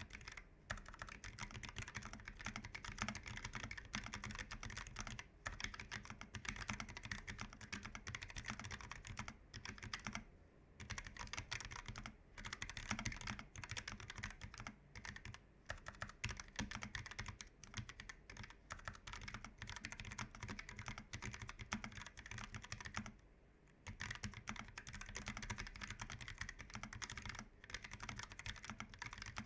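Typing on a Keychron K1 v4 tenkeyless keyboard with Gateron low-profile red linear switches: a fast, continuous run of light key clicks, broken by short pauses about ten seconds in and again about twenty-three seconds in.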